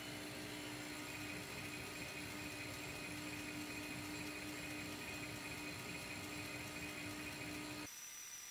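Laser cutter running while it engraves birch plywood: a steady whir with a low hum and a higher whine. Near the end the sound cuts off abruptly to a quieter steady hiss with a thin high tone.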